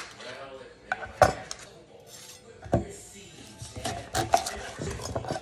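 Kitchen utensils clinking and knocking against pots, pans and dishes: several sharp separate clatters about a second apart.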